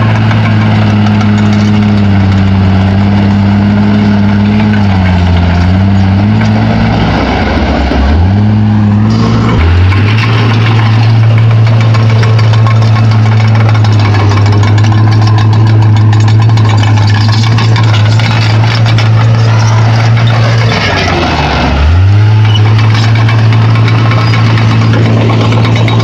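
Bulldozer's diesel engine running steadily and loudly, its note dipping briefly twice and picking back up.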